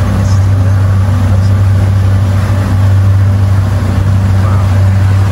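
An abra water taxi's engine running steadily underway, heard from on board as a loud, constant low hum over a noisy rush.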